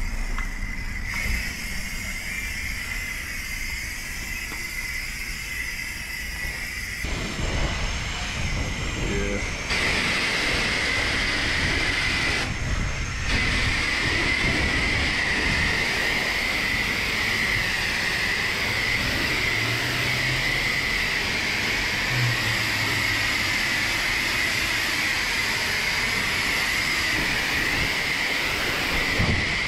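Self-serve car wash pressure wand spraying a steady jet of soapy water onto a car's body and glass: a continuous hiss with a steady high whine, louder from about ten seconds in.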